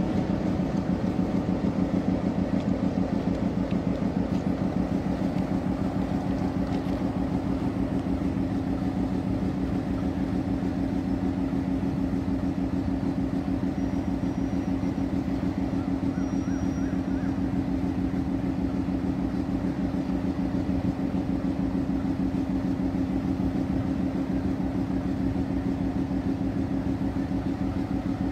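Class M10A diesel locomotive's engine idling steadily: an even, low hum with a fast pulsing beat.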